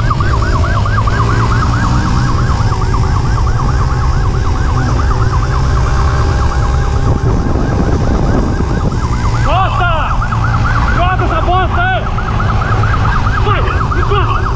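Police motorcycle siren on a fast warble, its tone sweeping up and down several times a second, over the motorcycle's engine and heavy wind rush at speed. From about ten seconds in, further rising-and-falling siren tones join in for a couple of seconds.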